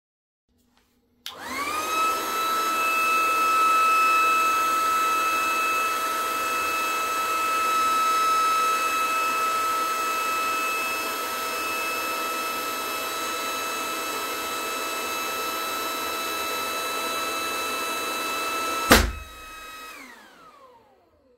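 Electric balloon pump starts about a second in and runs with a steady whine, inflating a large latex balloon. About two seconds before the end the balloon bursts with a single sharp bang, the loudest sound, after which the pump runs on briefly and winds down with falling pitch.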